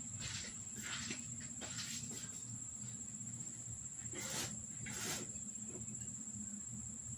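Steady high-pitched insect trill in the background, with a few short scraping handling noises from work on the tire, the two clearest about four and five seconds in.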